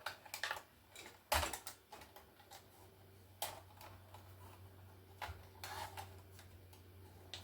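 Irregular clicks and clatters of small plastic and metal laptop parts being handled and taken apart by hand, the loudest about a second and a half in.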